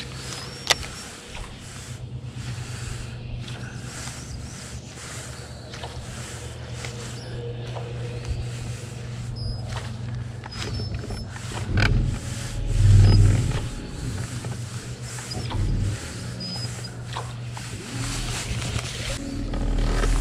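Electric trolling motor on a bass boat's bow humming steadily, with short clicks of a baitcasting reel being cast and wound. A louder low rumble comes about thirteen seconds in.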